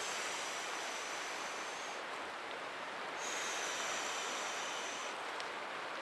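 A yellow inflatable sleeping mat being blown up by mouth: two long breaths hissing into the valve, each about two seconds, with a short break between them to breathe in.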